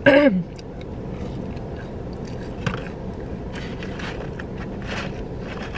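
Eating sounds: chewing and small clicks and scrapes of handling a plastic sauce cup and a takeout food box, over a steady low background hum.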